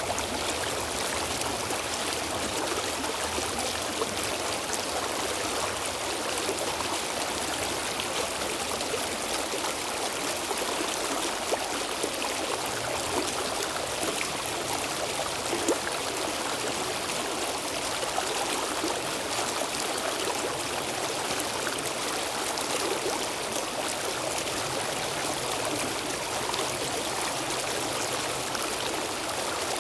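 A stream flowing over stones, a steady rushing with small splashes and trickles.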